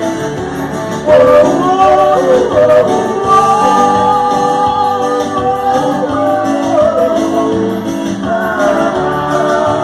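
Music with singing: a voice comes in loudly about a second in and holds long, bending notes over the band.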